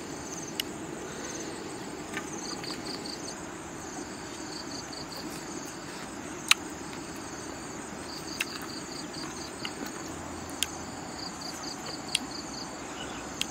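Insects chirping in short, rhythmic high trills that repeat every couple of seconds over a steady low background noise, with a few sharp clicks, the loudest about halfway through.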